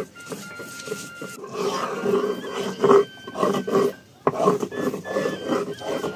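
Stone muller (batta) rubbed back and forth over a stone grinding slab (sil), grinding soaked masoor dal into a soft paste: repeated rasping strokes, with a single knock about four seconds in.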